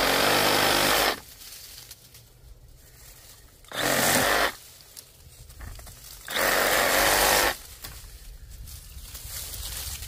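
Bauer 20V brushless compact reciprocating saw with a 9-inch Diablo pruning blade cutting through small brush stems in three short bursts of about a second each, at the start, around four seconds in and around six to seven seconds in.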